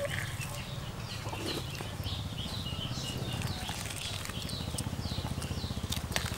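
Small birds chirping: short, high, falling chirps about three times a second, over a low steady hum.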